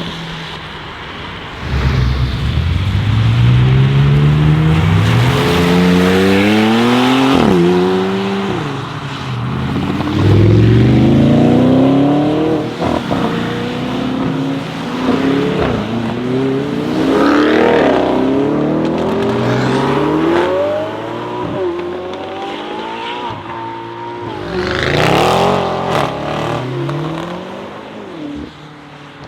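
Lamborghini Urus Performante's twin-turbo V8 through its Akrapovic exhaust, accelerating hard: the engine note rises through each gear and drops sharply at the upshifts, about five times, loudest about 25 seconds in.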